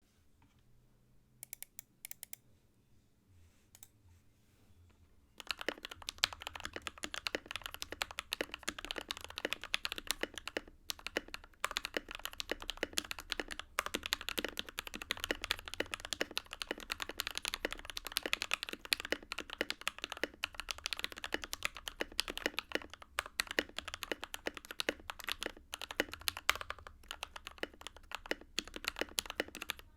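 Typing on an NK65 mechanical keyboard with Krytox 205g0-lubed Silk Emerald switches in an aluminum plate, with stock keycaps and lubed stabilizers. A few faint single keystrokes at first, then steady, fast typing from about five seconds in.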